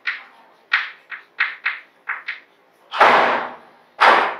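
Chalk writing on a blackboard: a quick run of short chalk strokes, then two longer, louder strokes about three and four seconds in as a line is drawn under the words.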